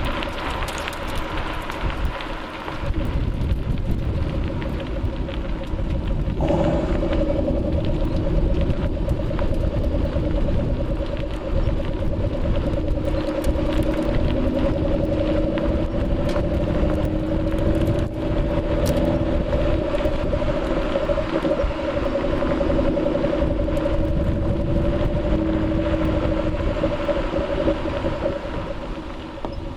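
Ford Shelby GT500's supercharged V8 running at a steady cruise: a low, even exhaust drone over road rumble. The engine note strengthens about six seconds in and then holds steady.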